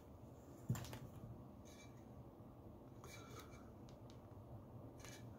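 Faint handling noise over quiet room tone: a single knock about a second in, then a few brief soft rustles.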